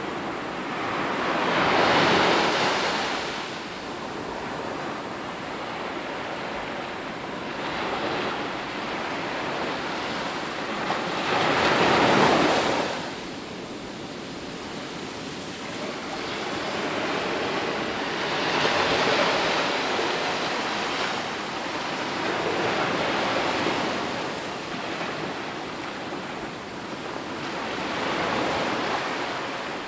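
Ocean waves breaking and washing ashore, a steady rush of surf that swells with each breaking wave every several seconds, the biggest crash about twelve seconds in.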